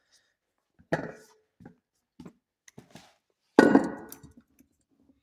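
Metal parts and tools clanking and knocking as they are handled and set down: a few light knocks, then a louder clank about three and a half seconds in with a short ring.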